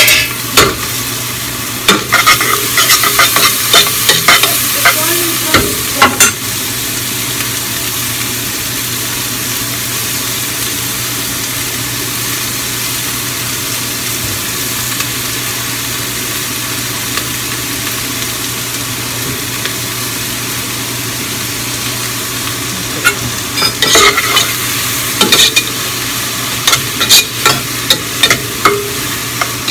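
Chopped onion, tomato, serrano chile and garlic frying in a pot with a steady sizzle. A utensil clicks and scrapes against the pot in clusters about the first six seconds and again near the end as the mixture is stirred.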